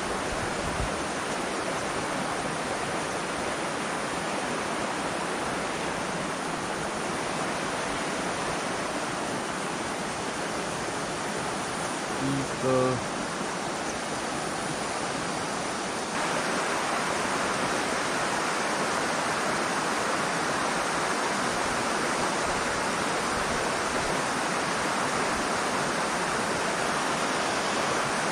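Shallow rocky river rushing over stones, a steady hiss that gets a little louder about sixteen seconds in. A short pitched sound about twelve seconds in stands out as the loudest moment.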